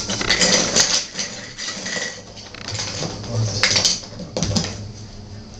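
Toy vegetables clattering and clicking as they are handled and knocked together, in a couple of irregular bursts.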